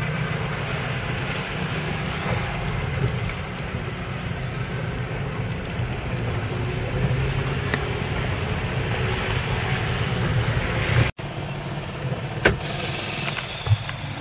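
Steady low rumble of a car driving slowly, heard from inside the cabin. About eleven seconds in the sound cuts out for an instant and resumes a little quieter, with a couple of sharp clicks near the end.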